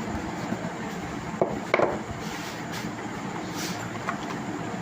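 A smartphone box being handled and opened: two sharp clicks or knocks about a second and a half in and a brief rustle later, over a steady background hiss.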